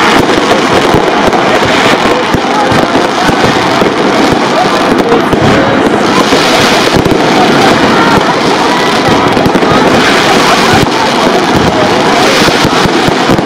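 Many fireworks and firecrackers going off at once, a dense, unbroken crackle of bangs with no pause.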